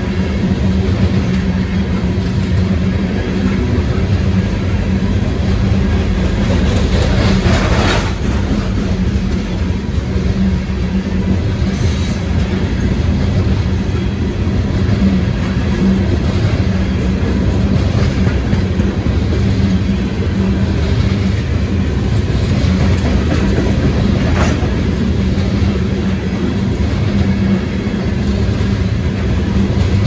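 Freight train of coal hopper cars rolling past close by: a steady rumble of steel wheels on rail, with a few brief sharper sounds standing out now and then.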